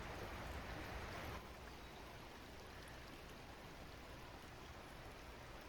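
Steady rush of flowing stream water, dropping to a quieter level about a second and a half in.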